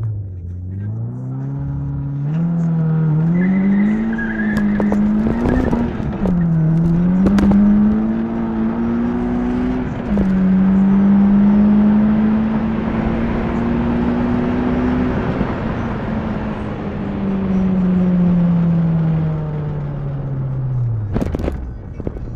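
Turbocharged SR20DET four-cylinder in a 1998 Nissan 200SX SE-R, heard from inside the cabin, accelerating hard at full throttle at 10 psi boost. The revs climb and drop sharply at three upshifts, then fall away steadily over the last several seconds as the throttle is lifted.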